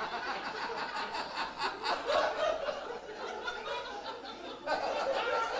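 Audience laughing at a joke: chuckles and laughter from several people in a room, rising again about three-quarters of the way through.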